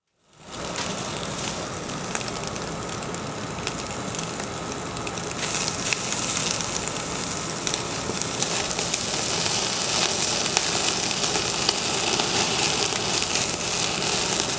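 Beef sizzling and crackling on a charcoal grill, with a steady hiss and many small pops. It gets louder and brighter about five and a half seconds in.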